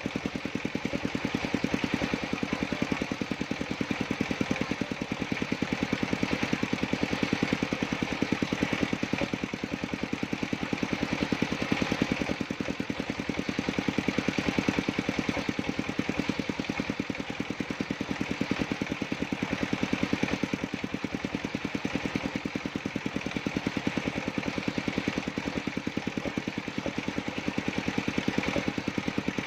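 Engine of a circular sawmill running steadily with a rapid, even beat.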